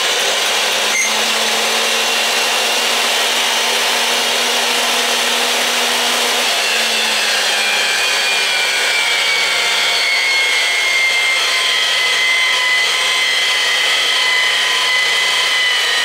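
Homemade electric pipe-threading machine running steadily while its die head cuts threads onto black steel pipe, metal-cutting noise over the motor's hum. Its whine slowly drops in pitch through the second half.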